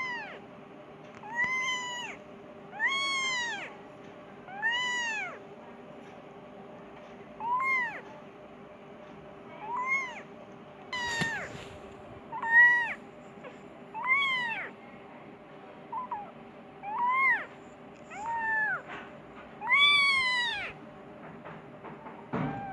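Persian kitten meowing over and over, a string of short calls each rising then falling in pitch, roughly one every second and a half. A sharp click sounds about halfway through.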